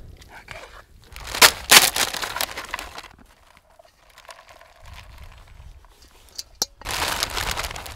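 Crisp tortilla chips crinkling and crunching as they are handled on a wooden board and cooked ground beef is scraped onto them, loudest about a second and a half in and again near the end, with a single sharp tap just before that.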